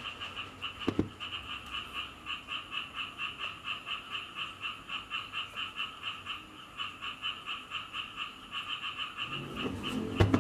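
Frogs croaking in the background, a steady pulsing call about five times a second. A sharp knock about a second in and a few louder knocks near the end come from the saw's motor housing and parts being handled.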